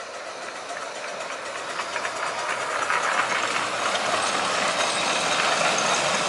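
A 7¼ inch gauge miniature train running on its track, drawing nearer and growing steadily louder, with a faint rapid clicking from the wheels over the rails.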